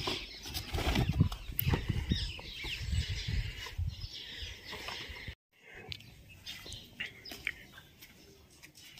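Dogs rustling and scuffling as they tug at a piece of cloth, with irregular rustles, clicks and low thumps. The sound breaks off abruptly about five seconds in and then continues more quietly with scattered scuffs.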